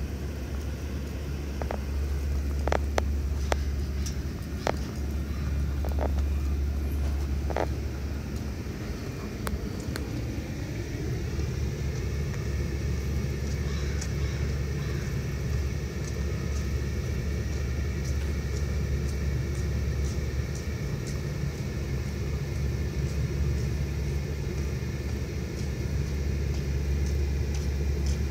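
Street ambience with a steady low rumble of road traffic and a few sharp clicks in the first eight seconds. About ten seconds in, a vehicle's engine rises in pitch and then holds steady.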